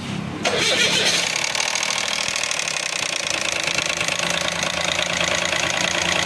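Car engine idling steadily with a fast, even ticking rattle: the abnormal engine noise to be fixed.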